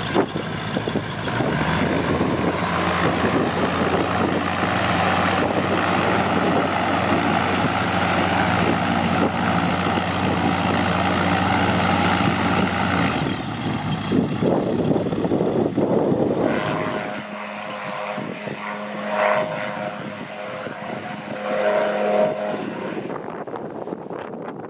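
Turbocharged gyrocopter's engine and pusher propeller running at takeoff power, a steady loud drone that then falls away as the aircraft climbs off. From about 17 seconds in it is clearly fainter and more distant.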